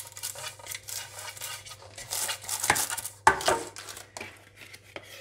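Hands handling a metal springform pan lined with parchment paper: scratchy paper rustles and small metal clicks, with a sharp knock a little over three seconds in.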